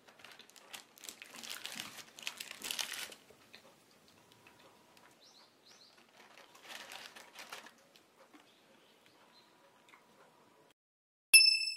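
Fork scraping and crunching through a crumble-topped bar on a paper liner, crackly with paper crinkling, in two bursts. A short, bright ding sounds near the end and is the loudest sound.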